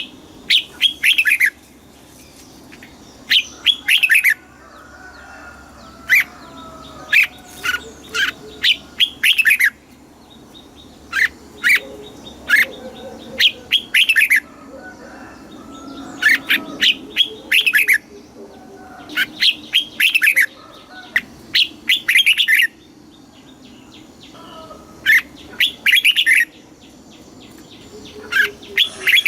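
Red-whiskered bulbul singing: short, loud phrases of quick sweeping notes, about a dozen of them, repeated every two to three seconds.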